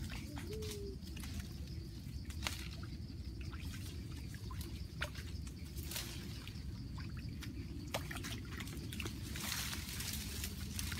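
Water trickling steadily, with scattered sharp clicks and a brief rush of noise near the end.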